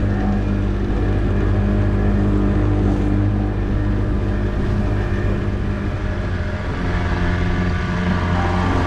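Outboard motor running steadily at cruising speed, driving a small boat across a lake, with water rushing and splashing past the hull.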